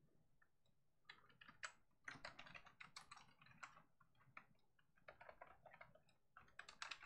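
Faint typing on a computer keyboard: irregular keystrokes starting about a second in, with a short lull in the middle and a quicker run near the end.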